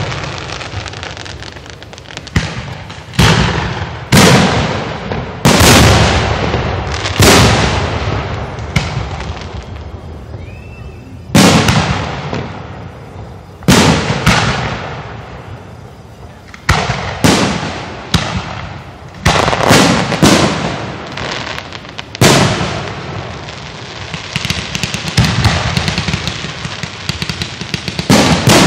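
Aerial firework shells bursting close overhead: sharp booms every one to two seconds, each dying away in a rolling echo, with a brief rising whistle about a third of the way in. Near the end the bursts run together into dense crackling pops as several shells go up at once.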